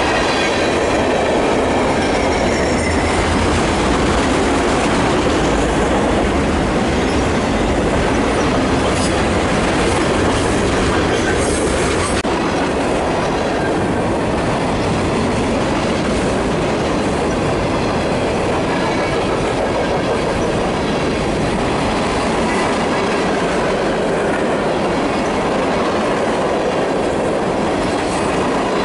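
A train rolling steadily past at close range: a continuous rumble of railcar wheels on the rails with a clickety-clack, and a faint high wheel squeal that fades after about four seconds.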